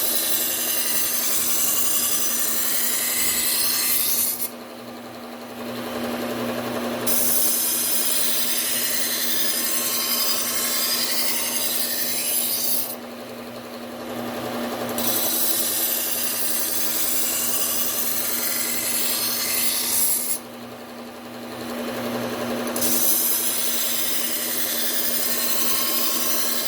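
Henckels chef's knife edge ground on a running Bucktool low-speed belt sander: four long sharpening passes with a loud grinding hiss, separated by three short pauses where only the sander's steady motor hum is heard. The passes grind out the last nicks in the edge and raise a burr.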